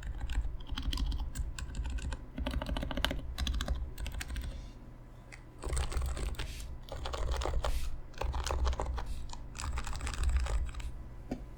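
Typing on a Happy Hacking Keyboard Professional Classic 3 with Topre electrostatic capacitive switches (45 g domes, lubed sliders, silencing rings) and blank OEM keycaps. It comes as runs of quick keystrokes, with a short pause about five seconds in, and stops near the end.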